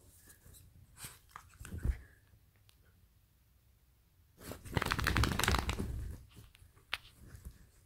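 Duvet and bed covers rustling as a dog is rubbed and moves about on them, with a few soft thumps. About four and a half seconds in comes a loud, scraping rustle of the covers lasting about a second and a half.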